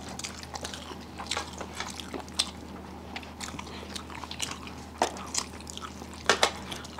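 People eating with their mouths close to the microphone: irregular wet clicks and smacks of chewing, with a few louder clicks about five seconds in and near the end, over a low steady hum.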